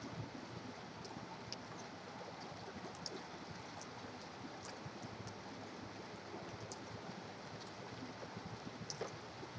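Steady rain mixed with distant highway traffic, an even hiss with scattered faint ticks of drops.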